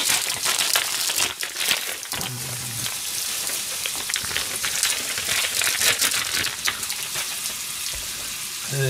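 Ground meat frying in a frying pan: a steady sizzle full of fine crackles, with a few sharper pops.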